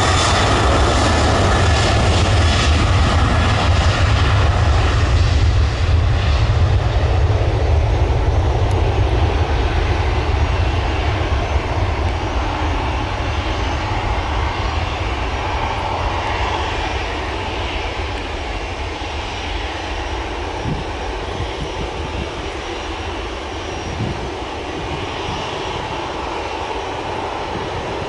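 Boeing 737-800's CFM56-7B turbofan engines at takeoff thrust during the takeoff roll and climb-out: a loud, steady low rumble with a rushing hiss over it, slowly fading over the second half as the jet moves away.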